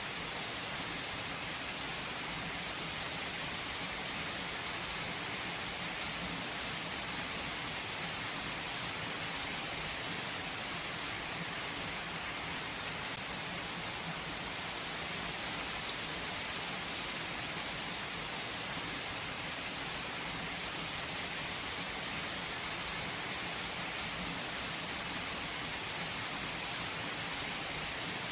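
Steady rain falling on a surface, an even hiss with scattered drop ticks, unchanging throughout.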